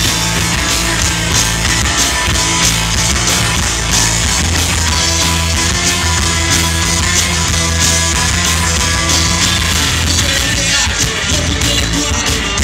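Rock band playing live: two electric guitars, electric bass and a drum kit with cymbals, loud and steady throughout.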